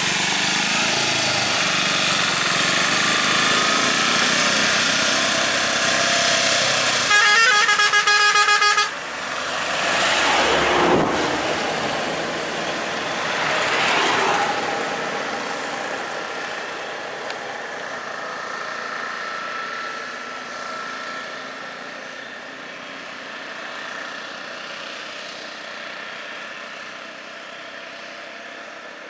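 Road traffic at close range: vehicle engines running, and a vehicle horn sounding one held blast of about two seconds, some seven seconds in. After the horn the traffic noise swells twice and then grows gradually quieter.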